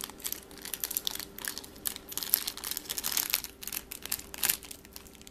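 Plastic M&M's candy wrapper crinkling and crackling in quick irregular crackles as the bag is picked at and torn open by hand.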